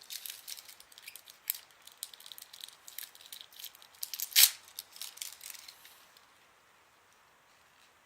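Surprise egg and its small plastic toy capsule being handled and opened: a run of small crinkles, clicks and rattles, with one louder click about four and a half seconds in, then it goes quiet near the end.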